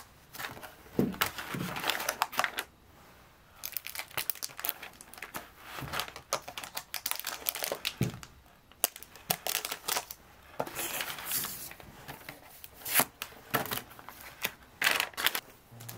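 Crinkling and rustling of something being handled, in irregular spells with short pauses, loudest about a second in, near thirteen seconds and near the end.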